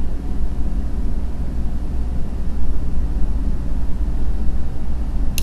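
Steady low rumble with a faint hum: the background noise that also lies under the narration.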